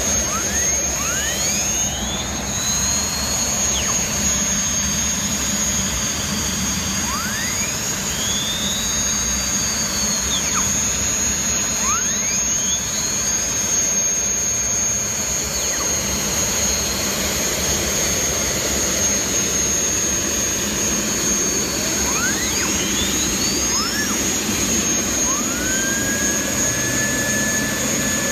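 Twin Lycoming T53-703 turbine engines of a 55-foot MTI race catamaran running at low power: a steady high-pitched whine over a loud steady rush. Several times the whine rises in pitch and levels off as the turbines are throttled up, then falls back.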